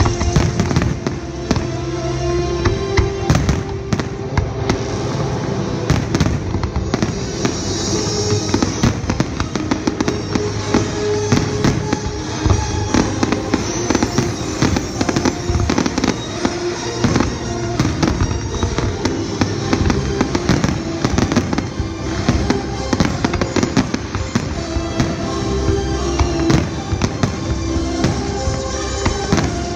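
Aerial firework shells bursting in rapid, irregular succession, many bangs close together, over music with steady held notes playing alongside the show.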